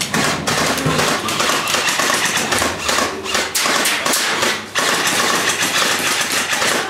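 Airsoft rifles firing in a rapid, irregular run of sharp clicks and cracks, shots overlapping with knocks throughout.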